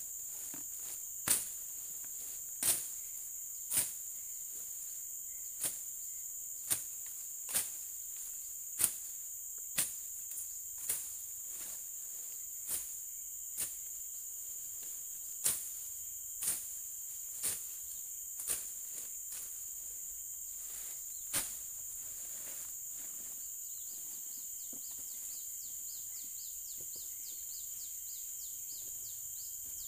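A hand blade slashing through undergrowth in sharp, irregular strokes, roughly one a second, which stop about two-thirds of the way through. A steady high insect drone runs underneath, and a fast chirping insect joins near the end.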